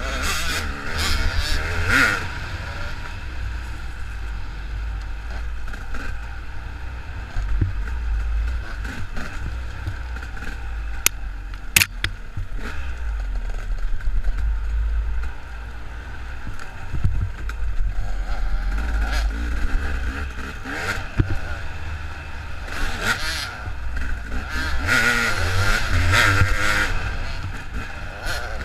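KTM dirt bike engine revving up and down with the throttle while ridden along a trail, with wind rumbling on the helmet-camera microphone. A couple of sharp knocks come about eleven and twelve seconds in.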